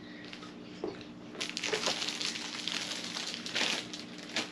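Irregular rustling and light clicks of hands handling packaging and audio gear, busiest from about a second and a half in.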